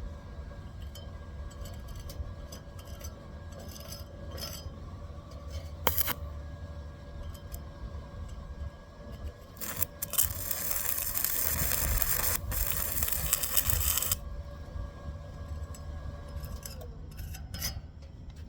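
Stick (arc) welding: scattered clicks and a sharp knock, then the welding arc crackling and sizzling for about four seconds before it breaks off. A steady hum runs underneath.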